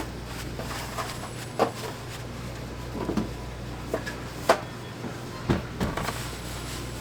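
Irregular knocks and clunks of kitchen work at a doughnut-frying stall, the sharpest about four and a half seconds in, over a steady low hum.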